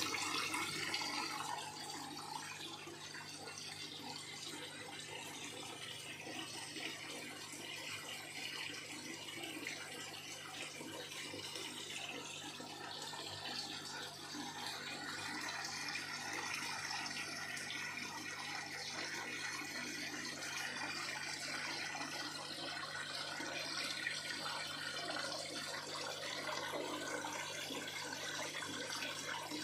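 Nutrient solution pouring steadily from a PVC return pipe into a plastic hydroponic reservoir tank, splashing on the water surface, with a low steady hum underneath.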